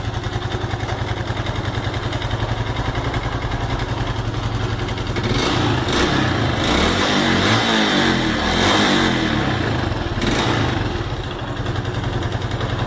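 Honda Pop 110's single-cylinder four-stroke engine idling, revved up for about five seconds from about five seconds in, then dropping back to idle. It has an ugly noise that the mechanic traces to a worn-out cam chain and a worn cylinder.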